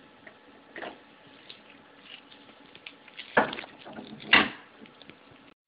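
Plastic side panel of a Canon Pixma iP4500 printer casing being worked loose by hand: light clicks and ticks, with two louder knocks about three and a half and four and a half seconds in, as the panel is pushed off its clip anchors.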